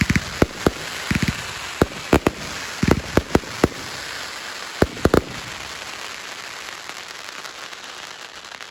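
Consumer firework cake and shell bursts: an irregular run of sharp bangs over the first five seconds or so, over a steady crackling hiss that thins out toward the end.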